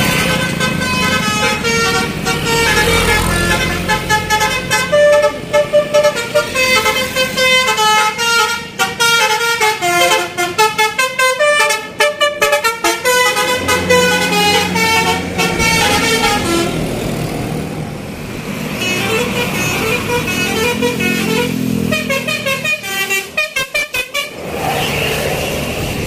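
A bus's "telolet basuri" musical horn, a multi-tone air horn that imitates a bamboo flute, playing a tune of stepping notes. It breaks into rapid stuttering notes in the middle and again near the end, over the low running of the bus's engine as the coach passes.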